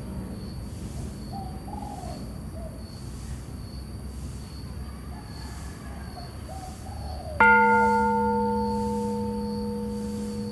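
A temple bell struck once about seven seconds in, ringing with several clear tones that fade slowly. Before the strike there is a low steady rumble with a few faint bird calls.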